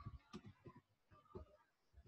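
Faint computer keyboard keys clicking: a few irregular keystrokes as a search query is typed.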